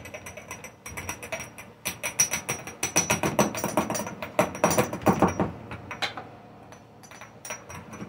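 Rapid tapping and clinking as a coffee-grinder cup is knocked against a metal funnel over a glass jar to shake the ground mushroom powder out: quick irregular taps, several a second, easing off briefly near the end of the run before starting again.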